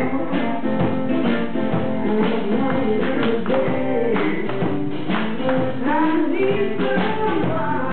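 Live band playing a song: a singer over electric guitars and a drum kit.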